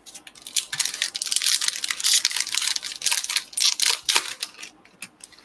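Foil wrapper of a baseball card pack torn open and crinkled by hand: a dense crackling rustle that dies away about four and a half seconds in, followed by a few light clicks.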